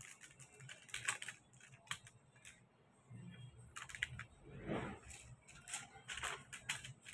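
Metallic foil paper crinkling and crackling in the fingers as it is folded, in irregular short crackles and taps.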